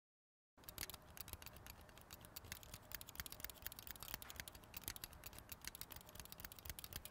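Faint, irregular crackling: many small sharp clicks over a low hiss, starting after a moment of dead silence.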